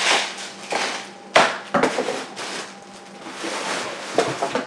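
A metal pellet tin being handled: crinkling wrapping and a few sharp knocks and clicks, with a small cluster of clicks near the end.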